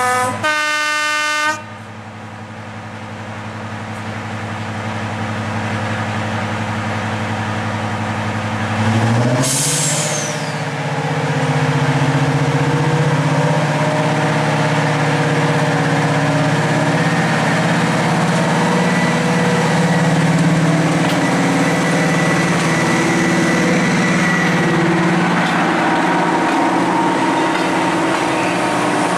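Class 55 Deltic diesel locomotive sounding a short horn note at the very start, then its Napier Deltic two-stroke engines running. The engine note rises sharply about nine seconds in and stays loud as the locomotive pulls away with its coaches.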